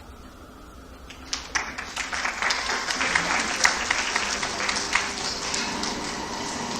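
Audience applauding, starting about a second in and building to a steady clapping.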